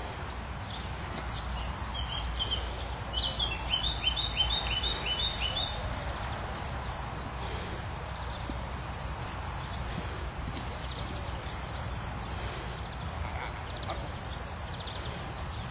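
Open-air field ambience with a steady low rumble of wind on the microphone. About three seconds in, a quick run of about nine high, falling chirps lasts under three seconds.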